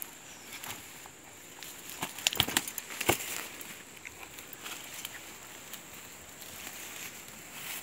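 Rustling and crackling of leafy undergrowth and a fishing net being handled as fish are taken out of it, with a quick flurry of sharp taps and slaps about two to three seconds in.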